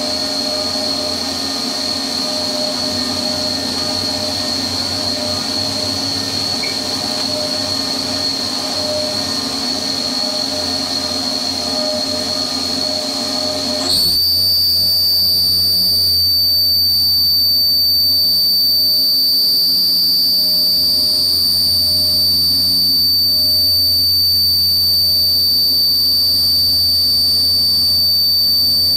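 CNC mill spindle and end mill cutting a keyway in a shaft under flood coolant: a steady high whine over the hiss of coolant spray. About halfway through it steps up louder and slightly higher in pitch.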